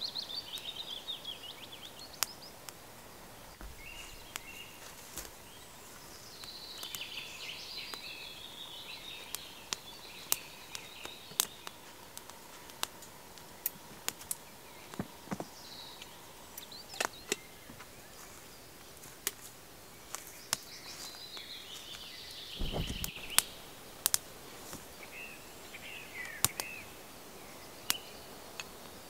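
Wood fire crackling in a small twig stove, with sharp, irregular pops throughout from the burning, resinous wood. Birds sing in the background, and there is one low thump about two-thirds of the way through.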